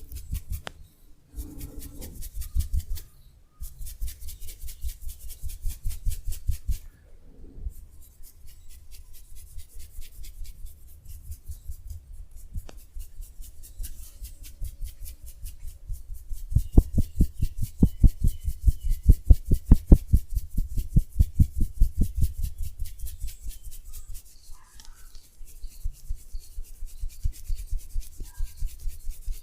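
Hands rubbing briskly and rhythmically over skin and hair in a massage, about four to five strokes a second. The strokes are firmer and heavier for several seconds in the middle.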